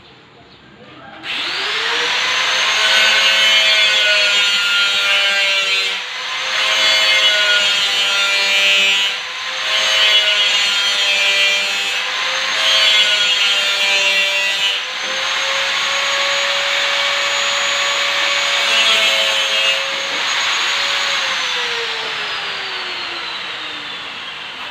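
Electric power tool spinning up about a second in and running at high speed, its pitch dipping briefly every few seconds as it bears into the work. It is then switched off and winds down with a falling whine over the last few seconds.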